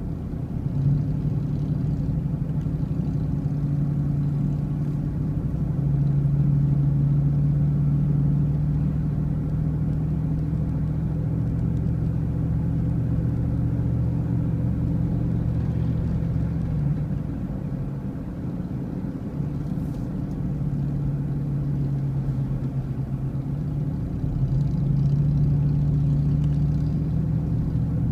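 Car engine and road noise while driving: a steady low drone whose pitch shifts up and down as the speed changes, easing briefly about two-thirds of the way through.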